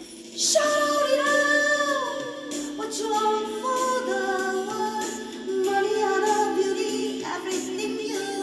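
A woman singing a slow pop ballad over a steady accompaniment. Her voice comes in about half a second in and moves through long, sliding notes.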